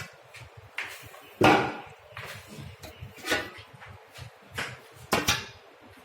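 Kitchen clatter: about six separate knocks and clunks of things being handled and set down, the loudest a heavy clunk about a second and a half in.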